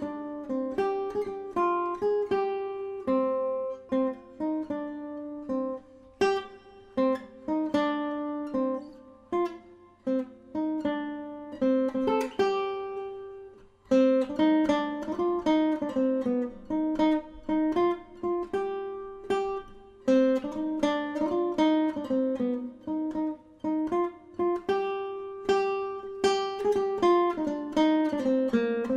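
Background music on acoustic guitar: a run of plucked notes, each ringing and fading, with a brief pause about halfway through.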